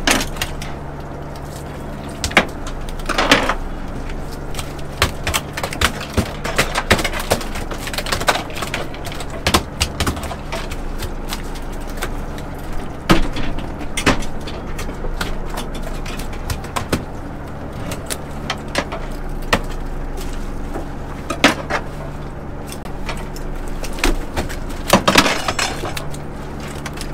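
Longline being hauled aboard a fishing boat: a steady engine drone runs underneath, with frequent clicks, clanks and knocks of gear on deck and a few louder clattering bursts.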